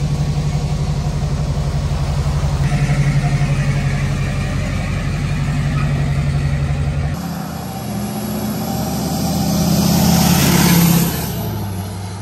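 The 6.6 L Duramax V8 turbodiesel of a Chevy Kodiak 4500 runs steadily as the truck pulls out, a little louder from about three seconds in. Then the truck drives past on the road: engine and tyre noise swell to a peak about ten seconds in and fall away as it drives off.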